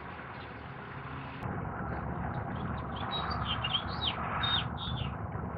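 A small songbird chirping: a quick run of short, high, falling chirps in the second half, over a steady low background rumble.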